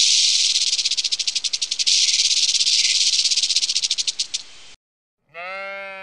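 A snake's dry rattling buzz, pulsing rapidly and evenly, which cuts off a little before the end. After a short pause, a sheep bleats once for about a second.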